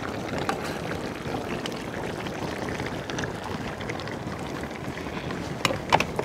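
Large pot of curry simmering: a steady bubbling hiss with scattered small pops. Two or three sharp knocks come near the end.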